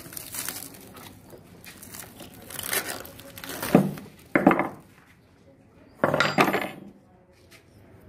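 Plastic wrapping crinkling as it is pulled off a spool of enamelled copper winding wire, with three sharper knocks and clinks in the second half, the last one ringing briefly.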